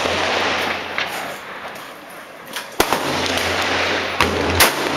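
Rifle shots at an outdoor range: several sharp cracks, the loudest about three seconds in and just before the end.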